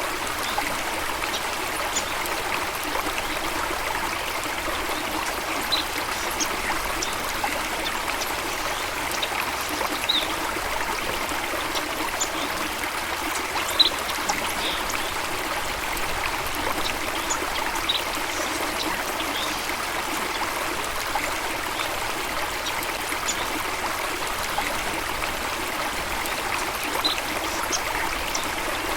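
A stream or small waterfall running steadily, a constant rush and trickle of water. Brief high chirps stand out here and there above it.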